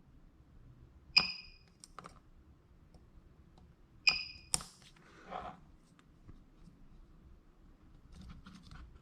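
Two spot welds about three seconds apart from a PCB battery spot welder fired through a handheld spot-welding pen onto thin nickel strip. Each is a sharp crack with a short high beep, with lighter clicks and handling around them.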